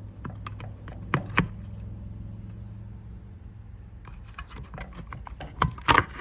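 Scattered clicks and taps of plastic and metal parts as a Tesla Model S door handle assembly is handled and worked apart, growing busier and louder near the end, over a steady low hum.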